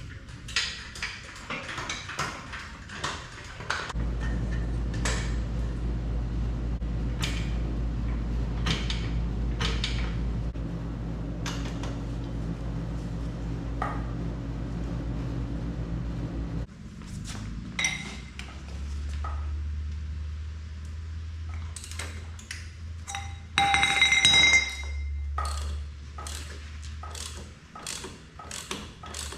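Metal tool and part clinks and knocks, with a steady electric motor hum from about four seconds in to about seventeen, then a lower hum until near the end. A loud metallic ringing clang comes about two-thirds of the way through.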